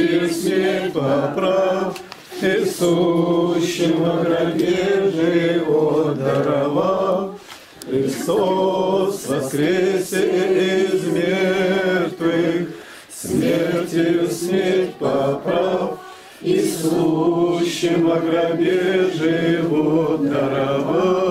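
A small congregation of men and women singing a hymn together without accompaniment, in long held phrases with short breaks between them.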